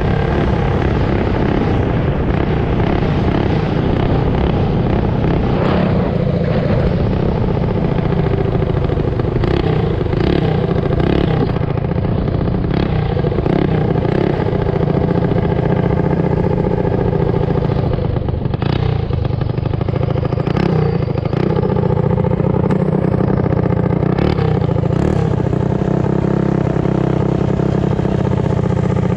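Mini bike's small engine running at a steady pitch while riding, with brief rattles from the bike several times.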